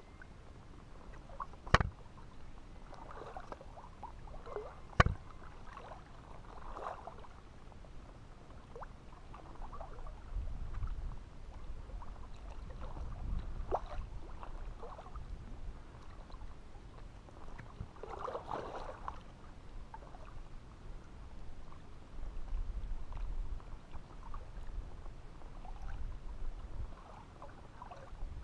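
Small waves lapping and sloshing against the rocks at the lake's edge, with a faint low wind rumble on the microphone at times. Two sharp clicks, about two and five seconds in, are the loudest sounds.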